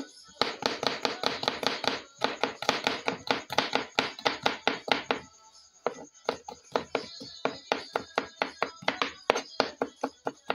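Chef's knife chopping garlic cloves on a wooden cutting board: rapid, regular blade strikes against the board, several a second, with a short pause about halfway through before the chopping resumes.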